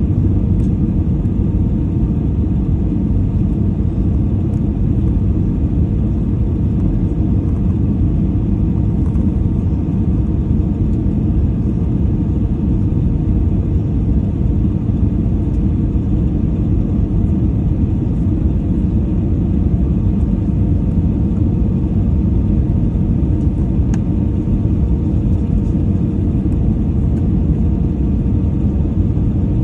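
Jet airliner cabin noise heard from a window seat during the approach: a loud, steady, even rumble of engines and airflow, with a faint steady hum above it.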